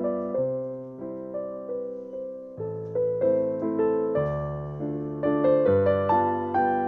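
Background music: a gentle piano tune with soft bass notes, the notes changing about twice a second.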